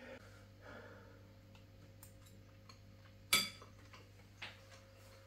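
Quiet kitchen with a steady low hum, broken by a few small eating clicks, the sharpest about three seconds in and a smaller one a second later.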